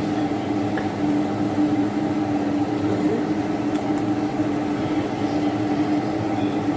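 Steel pot of soup at a steady boil on the stove, stirred with a wooden spoon, under a steady low hum.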